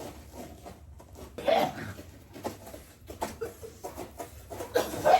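Short cough-like vocal outbursts from a person, about a second and a half in and again near the end, with scattered faint clicks in between.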